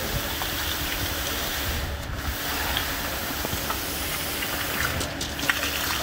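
Concrete pump running, pushing wet concrete through the hose onto the slab: a steady hiss and rumble that eases for a moment about every three seconds.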